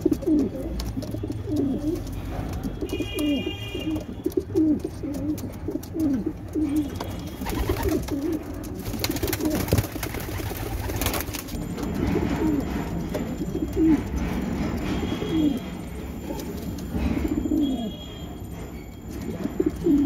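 Homing pigeons cooing over and over in short, low, gliding coos, the bow-coo of a cock pigeon bowing and turning round to court a hen.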